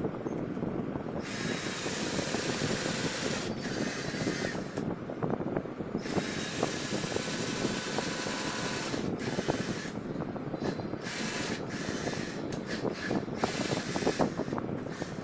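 Cordless drill boring into the edge of a chipboard panel: the motor runs in stretches of a few seconds, then in several short bursts near the end, over a rough grinding crackle.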